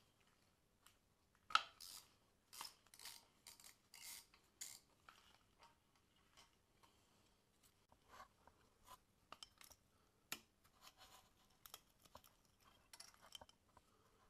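Faint metallic clicks and short scraping bursts of a hand tool working on engine parts, coming in quick clusters with pauses between.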